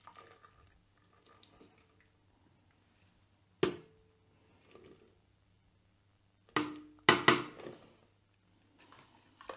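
Flour pouring from a package into a food processor's stainless-steel mixing bowl with soft rustling, broken by a sharp knock about a third of the way in and three quick knocks in a row later on, the metal bowl ringing briefly after each.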